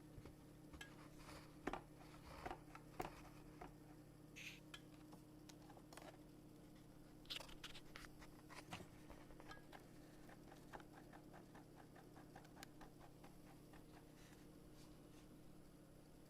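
Faint scattered clicks, taps and light scrapes of plastic being handled as the vacuum cleaner's spring-loaded base is worked, with a quick run of small ticks midway, over a faint steady low hum.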